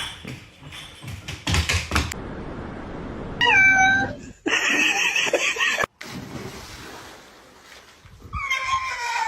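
A cat meowing: a short meow falling in pitch about three and a half seconds in, then a longer, noisier cry, and another meow near the end. A few knocks come in the first two seconds.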